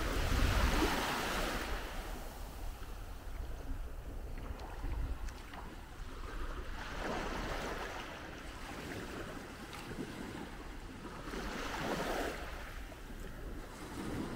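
Small waves lapping and washing up a sandy beach, the wash swelling every few seconds, with wind rumbling on the microphone.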